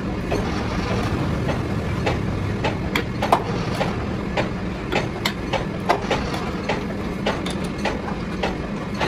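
Metal clicks and knocks at irregular intervals as the jaws of a four-jaw lathe chuck are adjusted with a chuck key, over a steady low machine hum.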